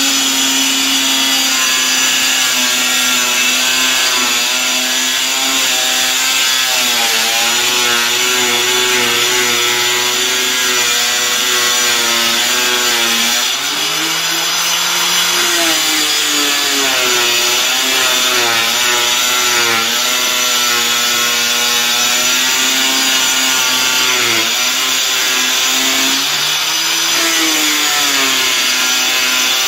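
Handheld electric disc cutter running continuously as it is pushed through a 4 mm GRC fibre-cement board, with a steady whine over a gritty hiss. The motor's pitch wavers under load and dips and recovers a few times as the disc bites into the cut.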